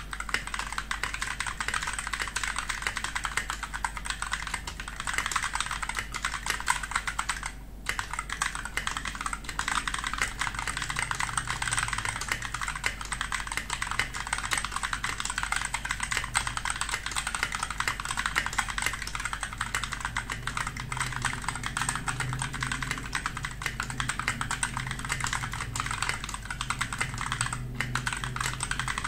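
Continuous typing on a Rexus MX5.2 Finale mechanical keyboard: a dense, steady run of key clacks, with short breaks about eight seconds in and near the end.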